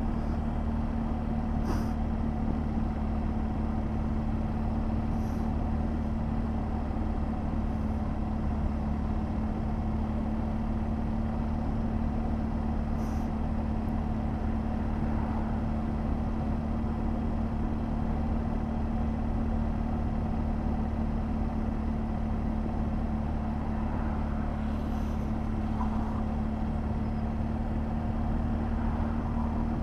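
BMW R 1200 GS Adventure's boxer-twin engine running at a steady cruising speed, heard from on the bike: a constant low drone with an even rush of wind noise and no gear changes or revving.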